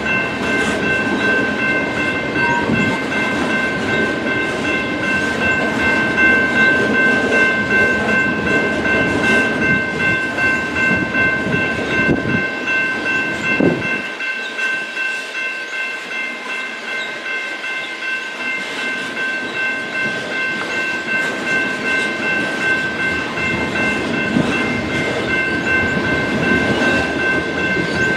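BNSF freight train rolling past, its steel wheels rumbling and clicking over the rail joints, with a steady high ringing tone over it. The deep rumble eases about halfway through and builds again.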